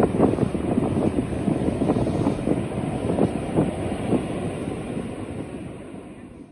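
Loud rushing outdoor noise with wind buffeting the microphone and a low rumble, fading out toward the end.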